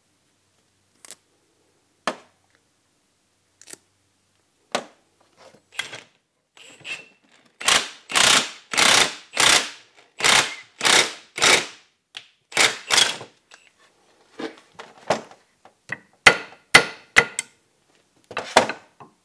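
Cordless impact wrench run in short bursts, about two a second for some six seconds, turning a ball joint press that pushes a new U-joint cap into the axle shaft yoke. Light metal clinks come before it as the parts are handled, and a few sharp clicks follow.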